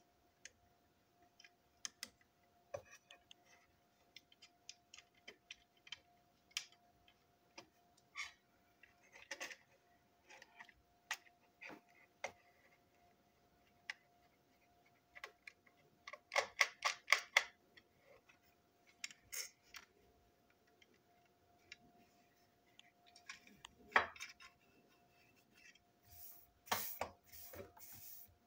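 Small plastic clicks and taps as a toy train brake van is taken apart by hand with a small screwdriver. The clicks are scattered, with a quick run of them about halfway through and a sharp click a few seconds before the end.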